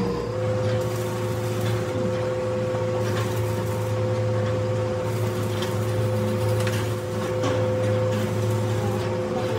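Metal lathe running: a steady motor and spindle hum with a constant whine on top, and a few faint clicks.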